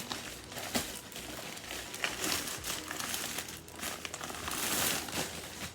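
Mail packaging crinkling and rustling as it is opened by hand, with irregular sharp crackles and a louder stretch of rustling just before the end.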